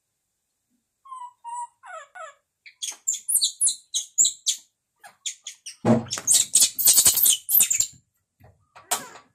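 Baby macaque giving a run of short, high-pitched squeaks and chirping squeals, some sliding down in pitch, with a louder stretch of knocks and rustling mixed in about six seconds in.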